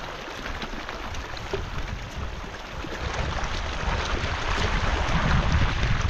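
Steady rush of a mountain river, with wind buffeting the microphone; the low rumble grows louder about halfway through.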